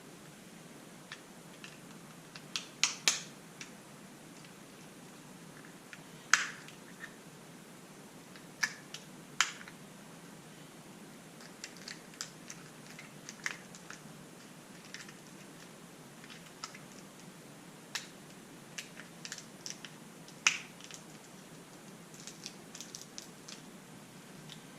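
Irregular light clicks and taps of small plastic toy pieces and packaging being handled, a few sharper ones scattered through.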